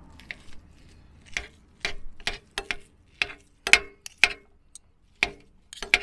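A metal fork clinking against a white ceramic bowl in an irregular run of sharp taps, some ringing briefly, as smoked mackerel fillets are mashed in it.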